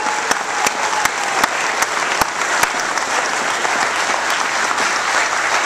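Audience applauding steadily, a dense wash of clapping with a few sharper claps standing out close by.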